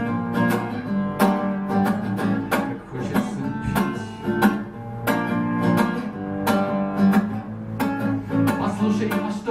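Acoustic guitar strummed in a steady rhythm, chords ringing between the strokes, with no voice.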